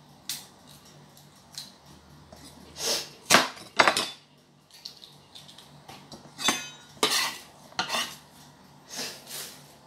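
Kitchen knife chopping an onion on a wooden cutting board: about ten irregular knocks of the blade on the board. Some of the knocks ring briefly.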